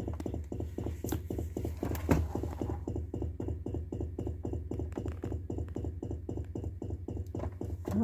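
Refrigerator making a fast, regular pulsing rattle, many beats a second, over a steady low hum. It is the noise the owner fears means the fridge is dying.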